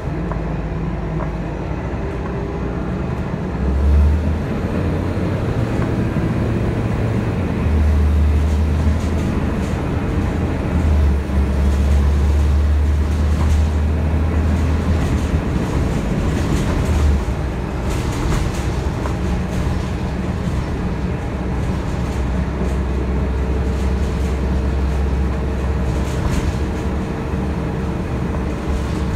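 City transit bus driving along, heard from inside the passenger cabin: a low engine rumble that swells and eases in stretches over steady road noise, with scattered short rattles. A faint steady whine joins about two-thirds of the way in.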